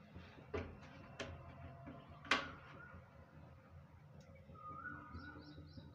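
A few light knocks and clicks of kitchen things being handled, the sharpest about two seconds in, as oil is readied for a kadhai. Faint bird chirps come in near the end.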